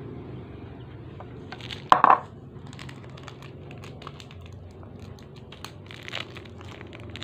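Thin plastic wrappers crinkling and crackling in the hands as small snacks are unwrapped, with a short loud burst of noise about two seconds in.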